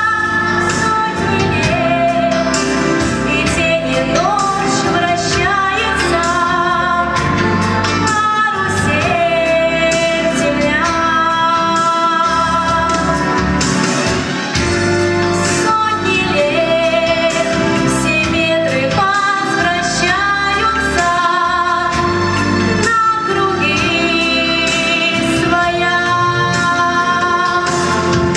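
A young female solo voice singing a song with vibrato over an instrumental accompaniment with a steady beat.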